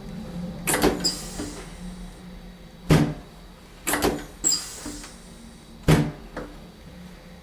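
Chiropractic table being handled: a run of sharp clunks and clacks about a second apart, with a brief hiss after two of them.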